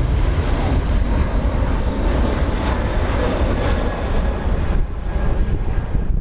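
Airplane engines running loudly as a plane comes in to land, a steady dense roar with heavy low rumble.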